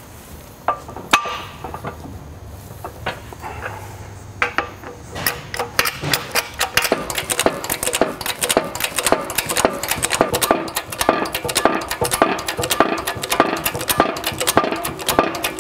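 A few separate metal clanks as a jet-drive pump shaft and bearing tool are set into a hydraulic shop press. From about five seconds in, a fast run of sharp metallic clicks and clinks comes as the press's bottle jack is pumped, pressing the ball bearing onto the shaft.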